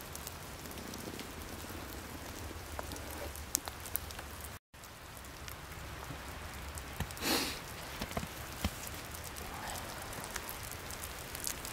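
Light, steady patter of falling drops in wet forest, with scattered small ticks and a brief rustle about seven seconds in; the sound cuts out for a split second just before the five-second mark.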